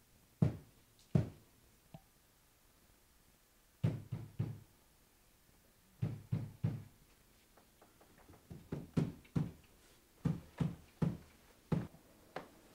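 Knocking on a door: sets of two or three knocks with pauses between them, then quicker runs of knocks in the second half.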